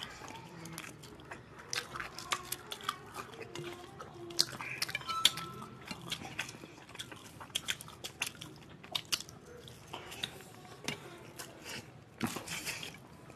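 Close-up eating sounds of people eating rice and chicken curry by hand: chewing, mouth smacks and fingers mixing rice on steel plates, many small sharp clicks scattered throughout.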